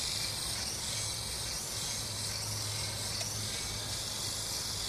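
Small electric RC helicopter's motor and rotors whirring steadily in flight, heard as an even hiss over a low hum.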